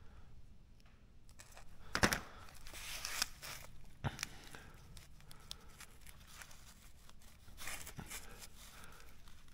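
Quiet handling noise from a small wiring connector being pinched down and pushed together: three sharp clicks, about two, four and eight seconds in, with short scratchy rustles of wire and plastic around the first and last.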